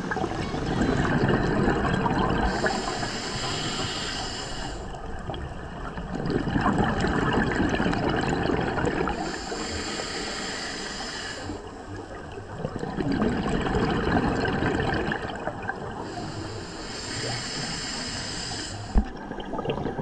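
Scuba diver breathing through a regulator underwater, three slow breaths. Each is a hissing inhale followed by a longer rush of exhaled bubbles. A single sharp knock sounds near the end.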